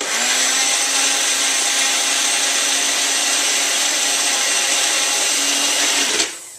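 Personal single-serve blender running steadily as its cup is held pressed down on the motor base, blending liquid ingredients into a milky drink. The motor cuts off about six seconds in and winds down briefly.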